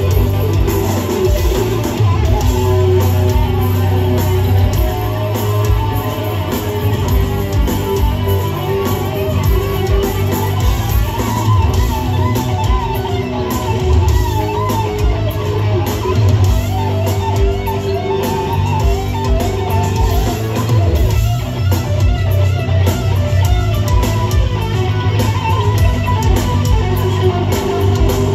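Heavy metal band playing live: distorted electric guitars over bass and drums, with a lead guitar line of bent, wavering notes.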